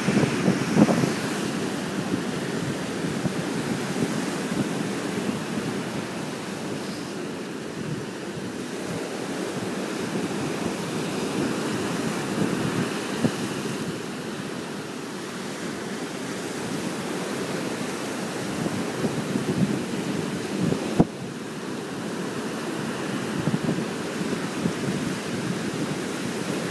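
Ocean surf breaking and washing against a rock jetty, a continuous rushing that swells and eases, with wind gusting on the microphone.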